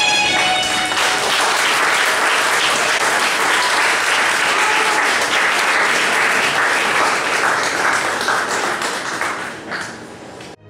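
Audience applauding, the clapping taking over as the dance music ends about a second in and fading away near the end.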